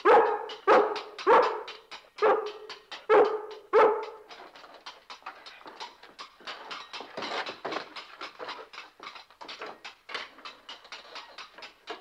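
Rough collie barking loudly six times in quick succession, about one bark every two-thirds of a second, stopping about four seconds in.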